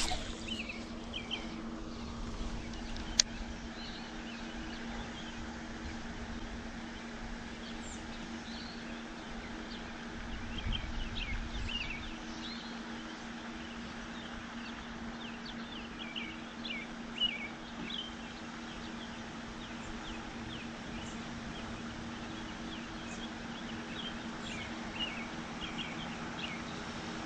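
Small birds chirping in short, scattered calls over a steady low hum, with one sharp click about three seconds in.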